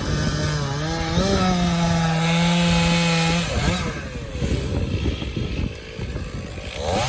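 Gas chainsaw cutting through elm at full throttle. Its pitch steps up a little about a second in, and the throttle is let off about halfway through, so the engine falls away to a lower, uneven running. It revs back up near the end.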